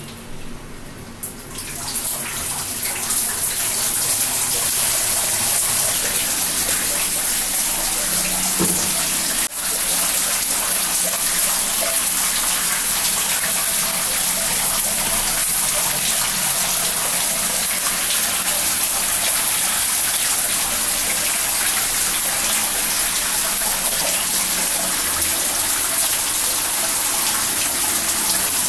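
Water spraying from a homemade PVC pipe rain shower head as a steady hiss. It comes on about two seconds in and builds to full flow over the next couple of seconds.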